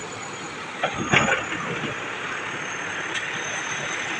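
Steady rushing of a fast, swollen, silt-laden river, with a couple of brief bumps about a second in.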